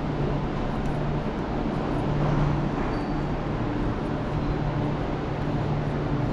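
Steady low hum and rumble of a high-speed KTX train standing at the far platform, heard across the tracks of an open-air station.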